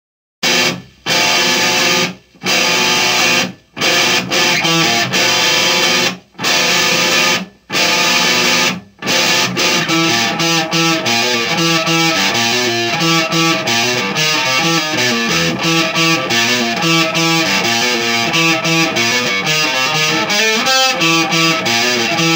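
Distorted electric guitar played loud: a run of chord hits, each cut off by a short silence, for the first nine seconds or so, then a continuous fast picked riff.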